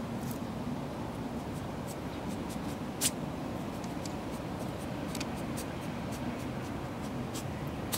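Tanuki (raccoon dog) searching the ground, making faint scratching and rustling ticks, with one short sharp sneeze about three seconds in.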